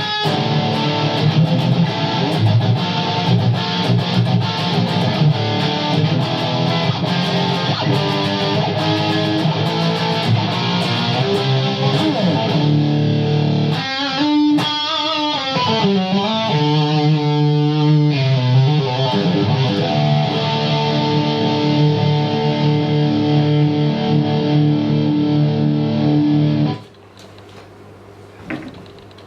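High-gain distorted electric guitar, an LTD EC10 with DiMarzio Titan pickups through a Line 6 Helix LT, playing djent-style riffs and chords. A passage of wavering, sliding notes comes in the middle, then held chords. The playing stops abruptly near the end.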